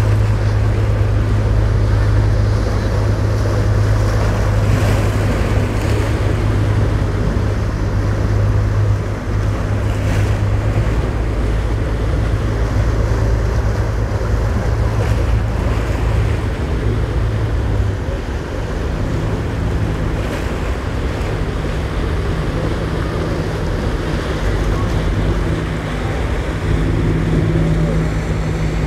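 Large sportfishing boat's inboard engines running with a steady low drone as it powers through choppy inlet water, with waves and wind noise on the microphone. The drone fades a little past halfway as the boat moves off, and a second boat's engine hum rises near the end.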